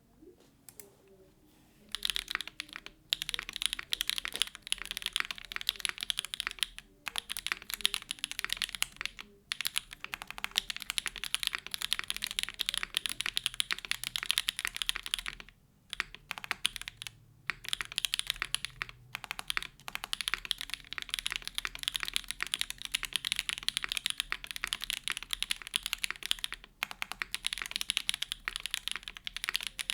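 Typing on a TKD Cycle7 mechanical keyboard with a carbon-fibre plate and case foam, hand-lubed SWK Jieum V2 switches and GMK Grand Prix keycaps. A fast, continuous run of keystrokes starts about two seconds in and breaks off a few times in short pauses.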